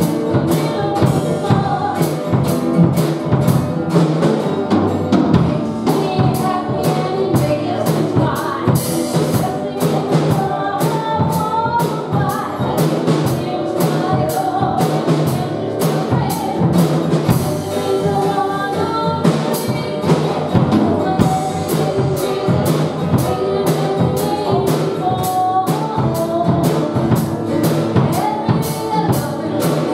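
A woman singing a Christian worship song to her own strummed acoustic guitar, with a steady beat of about two strokes a second.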